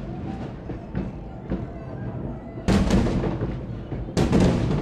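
Fireworks exploding: a few softer pops, then two loud bangs, one a little under three seconds in and the next about a second and a half later.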